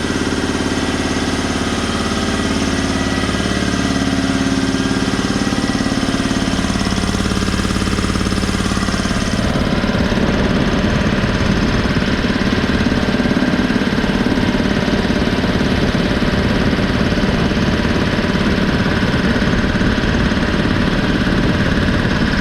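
Campbell Hausfeld 80-gallon electric air compressor running steadily as it pumps up its tank; not so loud. About nine seconds in the sound turns into a coarser, more pulsing low rumble and its highest hiss drops away.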